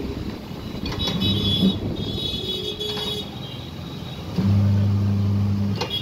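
Tyre-changer machine's electric turntable motor humming steadily while a motorcycle tyre is worked onto the rim. It runs briefly about a second in, then loudly for about a second and a half near the end, starting and stopping abruptly, over steady workshop and street noise.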